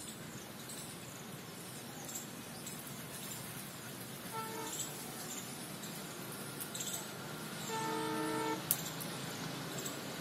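Distant diesel locomotive horn sounding twice, a short toot about four seconds in and a longer blast near eight seconds, as a train approaches. Birds chirp faintly throughout, and a sharp click comes just after the second blast.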